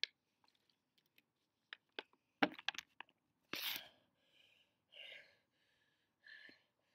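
Clicks and knocks of a phone being handled close to the microphone, with a rustling burst about three and a half seconds in, then short breaths about once a second, as after exercise.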